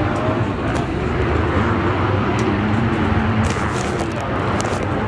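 Motocross bike engines running on the dirt track: a steady low rumble with a wavering engine note. A few sharp clicks come about three and a half to four and a half seconds in.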